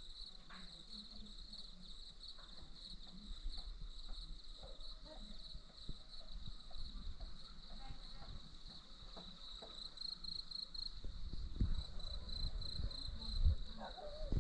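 Insects chirring: a steady, high, finely pulsing trill with scattered faint clicks, and a low rumble growing near the end.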